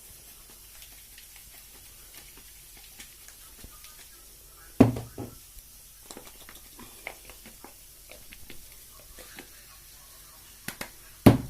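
Bottles and kitchen objects being handled: scattered light clicks, with two loud knocks, one about five seconds in and one near the end.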